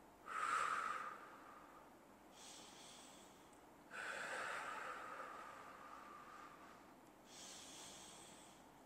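A man breathing slowly and deeply while holding a stretch: faint, drawn-out breaths in and out, about two full breaths, with one long exhale in the middle.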